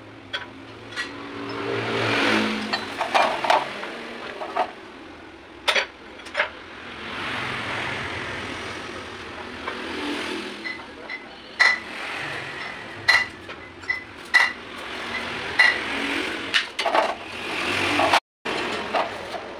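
Steel parts of a universal joint clinking and knocking as the cross and its bearing caps are handled against a cast steel yoke on a metal sheet: a string of sharp metallic clinks, some with a brief ring.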